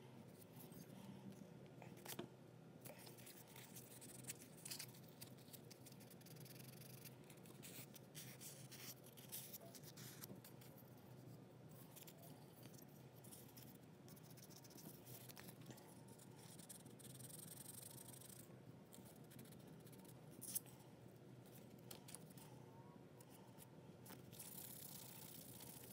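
Faint, intermittent scraping and rubbing of hand tools and abrasive paper on body putty over a small diecast metal toy car body, with a few light clicks.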